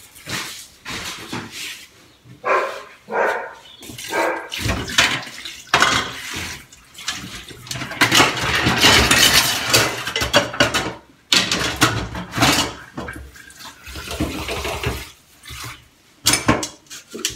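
Dishes being washed by hand in a kitchen sink: cups, plates and pans clinking and clattering against each other and the sink, with a longer spell of running tap water in the middle.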